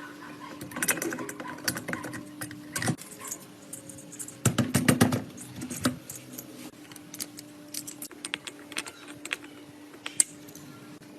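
Irregular metallic clicks and clinks of hand tools and metal parts being handled, with a denser, louder cluster about halfway through, over a faint steady hum.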